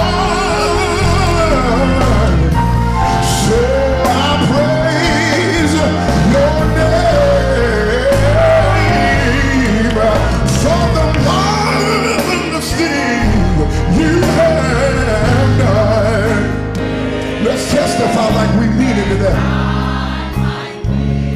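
Live gospel song: a male lead singer sings over a band of drums, bass guitar, organ and keyboards, with a choir backing him. The music dips briefly near the end.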